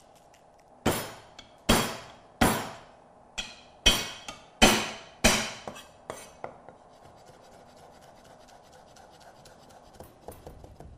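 Chinese cleaver chopping garlic on a thick wooden chopping block: about eight heavy, separate strikes in the first six seconds, each ringing briefly. After that comes quicker, much lighter chopping, a fast run of faint taps.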